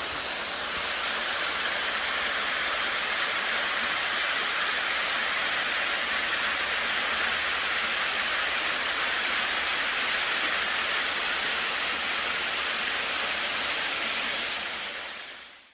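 Waterfall rushing in a steady hiss of falling water, fading out near the end.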